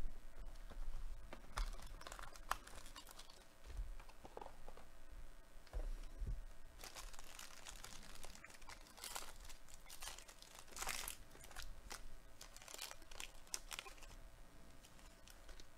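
Silver foil wrapper of a Topps Tier One trading-card pack being crinkled and torn open by hand, with irregular crackling that is busiest in the middle stretch.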